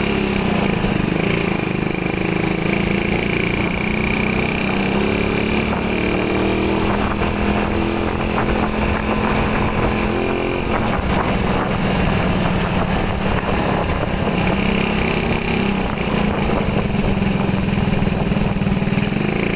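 Motorcycle engine running under way, with wind and road rush over it; the engine note shifts about halfway through.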